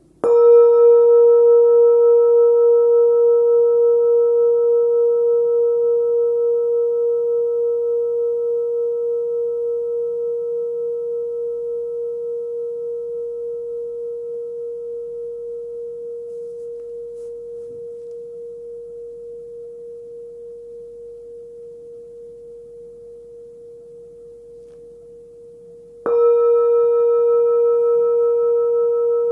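Small 11 cm hand-forged singing bowl, pitched at about 468 Hz (A), struck once and ringing with a clear, pure tone and fainter higher overtones. The ring fades slowly with a gentle pulsing wobble, and the bowl is struck again about 26 seconds in.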